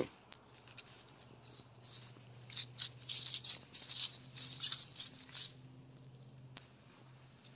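Steady insect chorus: a continuous, unbroken high-pitched trill from insects in the surrounding woods.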